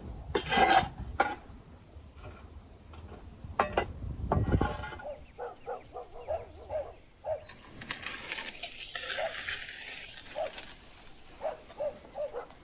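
A metal rake with a wooden handle scrapes and knocks through embers and ash on the floor of a clay oven, loudest about half a second in and again around four seconds. After that come a run of short, soft chirp-like sounds and a hissing rustle a little past the middle.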